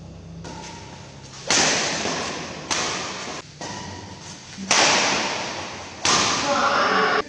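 Badminton rackets striking the shuttlecock in a fast rally, four sharp hits that echo in a hard-walled hall, the last a jump smash.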